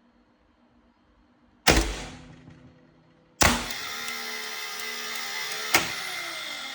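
Air circuit breaker being switched by its push buttons: a loud clack of the breaker mechanism, then a second clack followed by a steady mechanical running sound, with another sharp clack about two seconds later.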